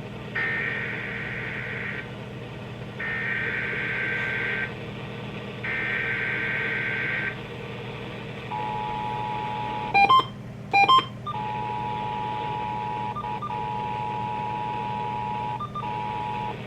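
Emergency Alert System header: three bursts of warbling two-pitch data tone, each about a second and a half long, with short gaps between them. Then the steady two-tone EAS attention signal, interrupted about ten seconds in by two short, much louder beeps and later by two brief dropouts.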